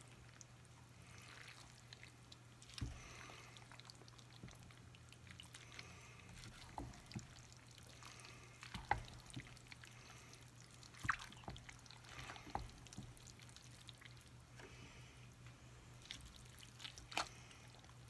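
Wooden spoon stirring a thick mix of browned ground beef, sausage and melted cheese in an enamel-lined cast iron pot: soft wet squishing, with a few sharp clicks where the spoon knocks the pot.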